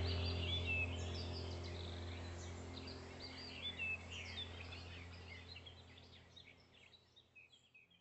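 Many small birds chirping and whistling over a steady low drone, the whole soundscape fading out gradually to near silence.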